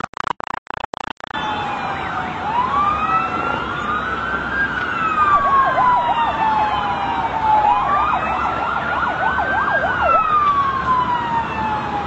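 Several emergency-vehicle sirens sounding at once: slow wails that rise and fall and overlap one another, broken twice by fast yelping. During the first second or so the sound stutters and drops out repeatedly.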